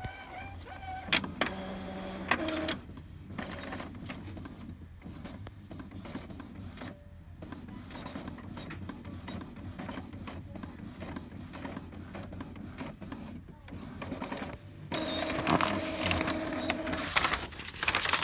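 Epson L3150 ink-tank inkjet printer printing a nozzle check pattern, run to test for clogged print-head nozzles. A couple of sharp clicks come first, then the mechanism whirs steadily, and a louder motor whine with steady tones comes in the last few seconds as the sheet feeds out.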